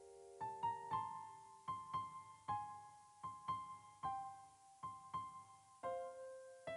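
Background solo piano music: a slow, gentle melody of single struck notes, about two a second.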